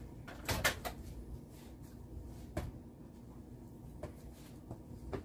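A few light clicks and knocks of kitchenware being handled at a kitchen counter: a small cluster about half a second in, then single knocks spread out toward the end, over a faint steady hum.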